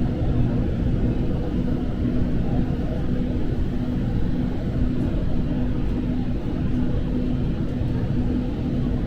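Steady running rumble of a fast-moving commuter train heard from inside the passenger car, with a low hum that pulses on and off throughout.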